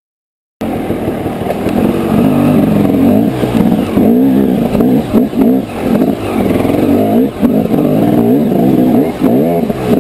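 Dirt bike engine revving hard, its pitch surging up and down as the throttle is worked on a climb up slick, wet rock. The sound starts abruptly about half a second in.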